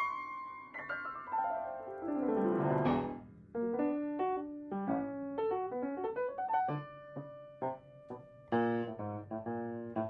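Solo piano music. A quick run of notes falls in pitch over the first few seconds, then single notes and short phrases follow, with fuller chords struck near the end.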